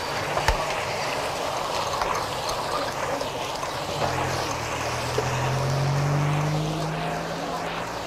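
Street traffic noise with a motor vehicle's engine tone rising slowly in pitch over the second half, and a sharp click about half a second in.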